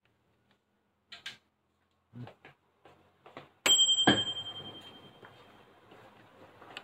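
Microwave oven's bell dinging once at the end of its cycle: a single bright ring that fades over about two seconds. A few soft clicks come before it, and a thump follows right after the ding.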